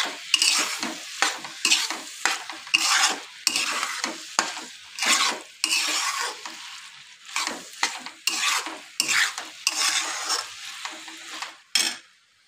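Steel spatula stirring and scraping fried okra through masala in a metal kadai, quick repeated strokes about two a second, with frying sizzle underneath. The stirring stops suddenly near the end.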